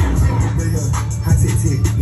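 Hip hop music: rapped vocals over a steady, heavy bass and regular drum hits.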